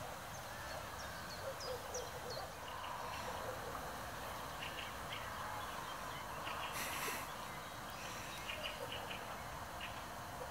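Eurasian beaver chewing waterside plants: faint crunching clicks in short clusters, with a short swish about seven seconds in. A few high, falling bird chirps between one and two seconds in.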